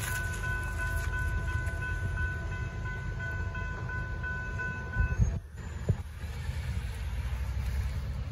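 Railroad crossing warning bells ringing steadily as the gate arms rise to clear the crossing, stopping abruptly about five seconds in. A low rumble of wind and passing cars runs underneath, with a couple of dull thumps after the bells stop.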